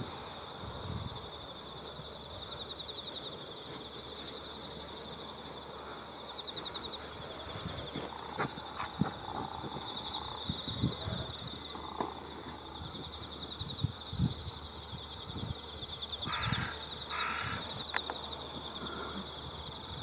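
Insects chirring steadily in two high pulsing bands, with two short crow caws in the distance near the end.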